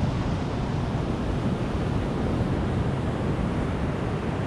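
Steady rush of ocean surf breaking on a sandy beach, mixed with wind on the microphone.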